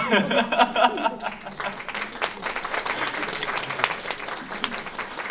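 Audience applauding, with several voices loudest over the first second.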